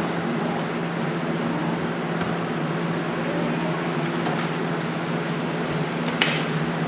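Steady low hum over an even hiss of room noise, with a single sharp tap about six seconds in.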